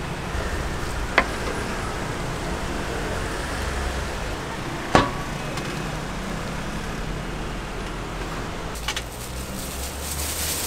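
A knife striking a wooden cutting board in two sharp knocks, about a second in and about five seconds in, with a few lighter knocks near the end, over steady street traffic noise.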